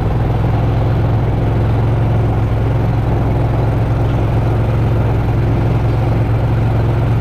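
An engine running steadily at a constant speed, a deep even hum with no change in pitch or level.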